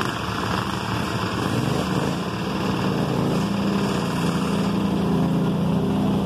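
Small garden tractor engines running, one revving up about two seconds in and then holding a steady, stronger note.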